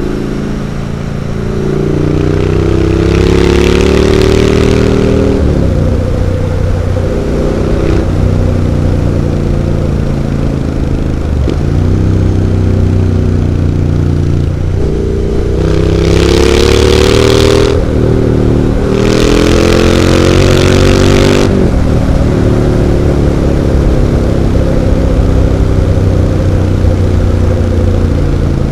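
Triumph Street Scrambler 900's parallel-twin engine through aftermarket Zard exhaust pipes, pulling hard and climbing in pitch, then dropping back at each gear change, about six times. A few stretches of loud rushing noise ride over the engine.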